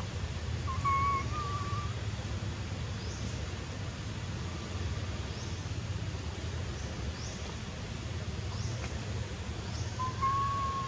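Baby macaque giving two soft, whistle-like coos, one about a second in and one near the end, over a steady low rumble.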